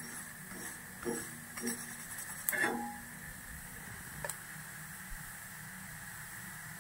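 A steel spatula pressing a roti on an iron tawa: a few light clicks and knocks of metal on the pan in the first three seconds and one more a little after four seconds, over a faint steady hiss.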